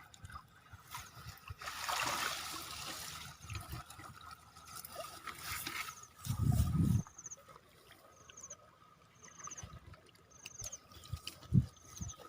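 Water trickling and splashing, with a low thump about six seconds in. In the second half a short high chirp repeats about once a second.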